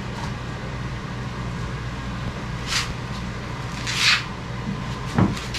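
Steady low workshop hum with two brief scraping sounds and a thump near the end as a wooden piece is pushed into place on the boat hull.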